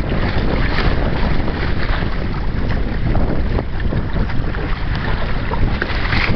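Steady, loud wind buffeting the microphone, with water rushing and splashing along the hull of a Hobie Tandem Island sailing kayak under sail in a light chop.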